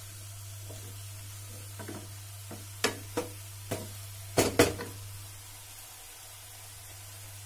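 Wooden spatula stirring brinjal strips in a nonstick frying pan, knocking against the pan several times, with the loudest knocks about halfway through, then stopping. Under it the vegetables sizzle faintly as they fry.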